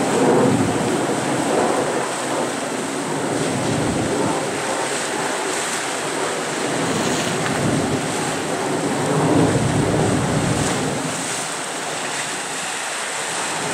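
Waves washing and splashing over jetty rocks, surging unevenly, with wind buffeting the microphone.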